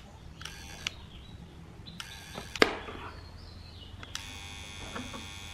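Transformer soldering gun with a copper wire-loop tip buzzing in short stretches as its trigger is pressed and released, three times, the last held longer. A sharp click about halfway through is the loudest sound.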